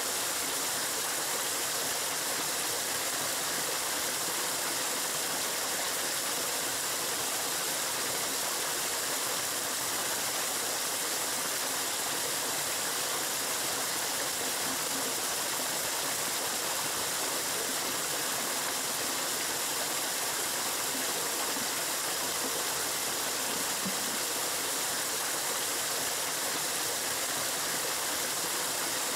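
Water gushing steadily from a pipe outlet into a pond: an even rushing noise.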